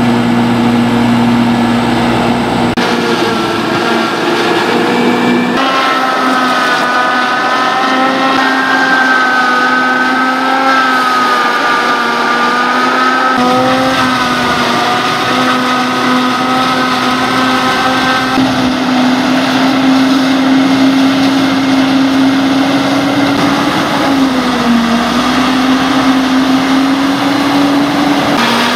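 Tractor and corn silage harvester running steadily: a constant engine note with higher whining tones above it. The note shifts abruptly a few times.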